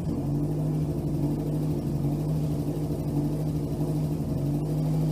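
Nissan SR20DET turbocharged four-cylinder engine, freshly transplanted into an S14 Silvia, idling steadily on one of its first runs.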